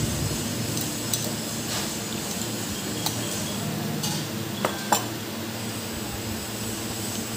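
Metal spoon scraping and clinking against a stainless-steel bowl while serving out chilli chicken gravy, with two sharp ringing clinks about two-thirds of the way through. A steady low hum runs underneath.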